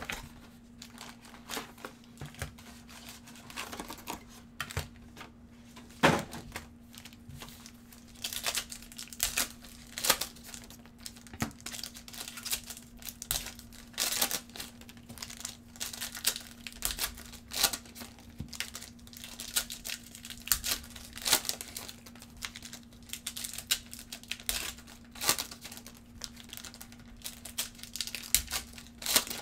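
Foil wrappers of 2019 Panini Select football card packs being torn open and crinkled by hand: a run of irregular sharp crackles and rips.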